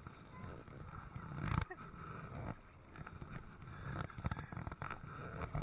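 A dog vocalizing in rough, irregular bursts.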